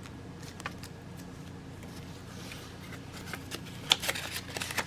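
Light handling noises: soft paper rustling and small clicks, with a sharper click about four seconds in and a few more just after.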